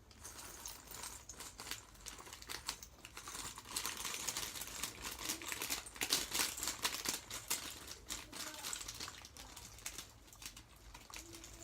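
Sticky homemade slime worked by hand, giving a fast, irregular run of small wet clicks and crackles, busiest in the middle.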